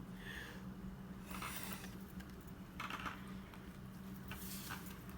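A few brief, soft swishes and rustles of Pokémon trading cards being handled and slid past one another, over a low steady hum.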